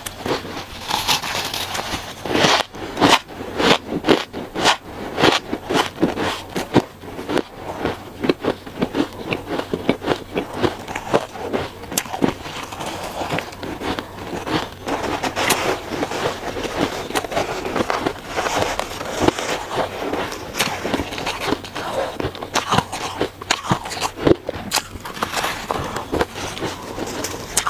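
Chewing and biting soft shaved ice: a dense, continuous run of small crunches and crackles, mouthful after mouthful.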